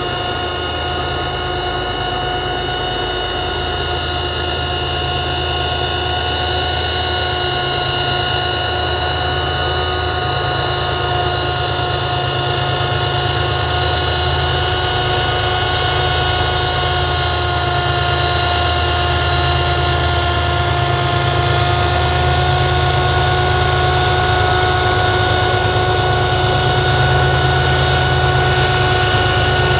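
GE diesel locomotives at the head of a loaded coal train approaching, their engines rumbling under a steady, high-pitched, many-toned whine that slowly grows louder as they near.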